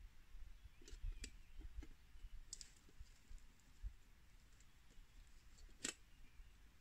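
A few light clicks and small knocks from camp cooking gear being handled, the sharpest one near the end, over a quiet background.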